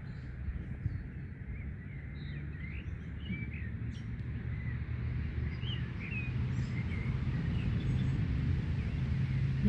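Small birds chirping on and off over a low outdoor rumble, which grows louder toward the end as a steady low hum sets in.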